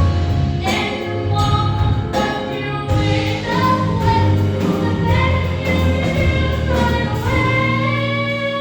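A girl's solo voice singing a musical-theatre song over a backing track, ending on a long held note.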